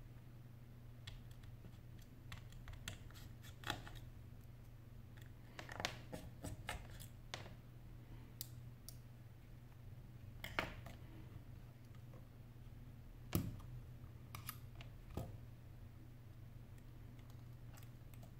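Irregular light clicks and taps of a precision screwdriver and tiny screws against an opened iPhone's metal frame and the work mat as screws are taken out and set down, with a few louder clicks among them.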